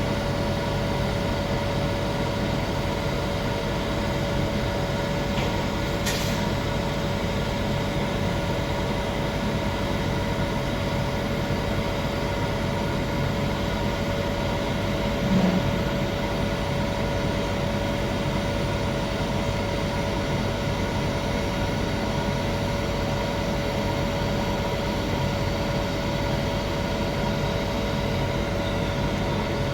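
Electric arc welding a pipe root pass: a steady, even arc crackle with a constant hum-like tone underneath. There is a single click about six seconds in and a short thump about halfway through.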